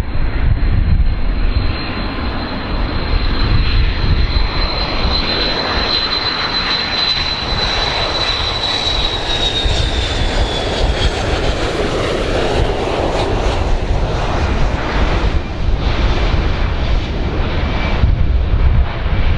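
Boeing 727 tri-jet on landing approach, its three tail-mounted JT8D turbofan engines running with a deep rumble and a thin high whine; the whine drops slightly in pitch and fades about ten seconds in as the jet passes.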